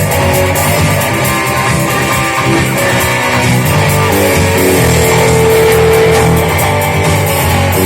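Guitar-led rock music, with low notes sounding under the guitar and a held note about four seconds in.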